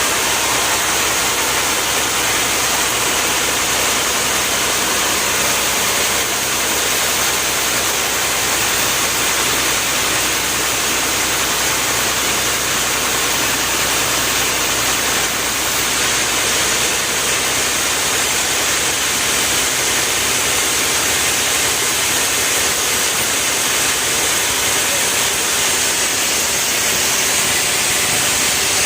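An engine running steadily under a loud, even hiss, typical of engine-driven log-cutting machinery.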